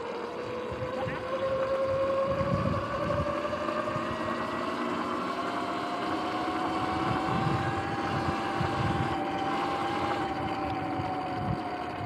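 Sur-Ron X electric dirt bike's motor and drivetrain whining while riding. The whine rises in pitch over the first half as the bike speeds up, holds, then eases a little near the end, with wind buffeting the microphone.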